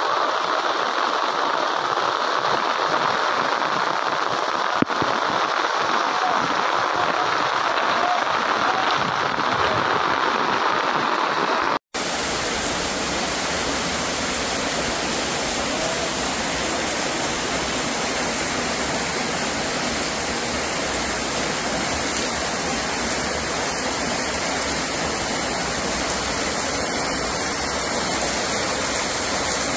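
Steady rushing of fast-flowing floodwater and rain. A brief dropout about twelve seconds in gives way to a second recording of floodwater running down a street, a fuller, deeper rush.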